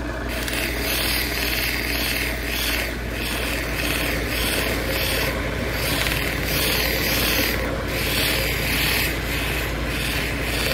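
Plume agate cabochon on a dop stick rubbed against the spinning fine sanding wheel of a cabbing machine, over the steady hum of the motor. The stone's rubbing hiss swells and fades about one and a half times a second as it is turned against the wheel. At this fine stage the hard agate is not losing size, only being smoothed to an even frost.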